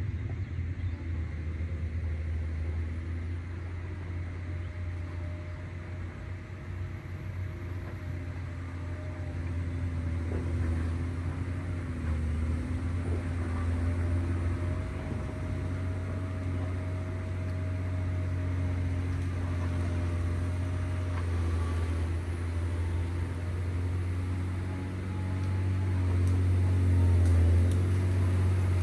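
John Deere 670 GP motor grader's diesel engine running steadily under working load, a deep low drone with a faint whine above it, getting louder near the end.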